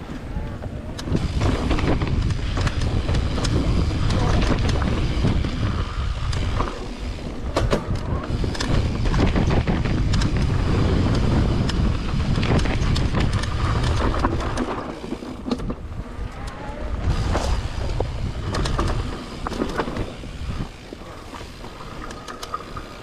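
Mountain bike riding along a dirt trail: a steady rumble of tyres and rushing air, with frequent sharp clicks and rattles from the bike. It is loudest for the first half and eases off after about fourteen seconds.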